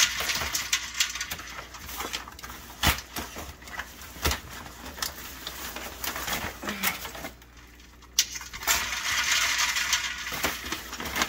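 Crinkling and rustling of a paper bag inside a plastic bag as live blue crabs are pulled out, with sharp clicks and knocks from metal tongs and crabs against the stainless pot and its ice. The rustling pauses briefly about three-quarters of the way through, then comes back louder.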